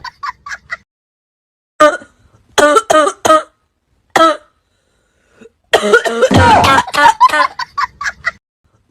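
A person coughing in repeated fits: a few short coughs, then longer groups of coughs, with the loudest and longest coughing fit from about six seconds in.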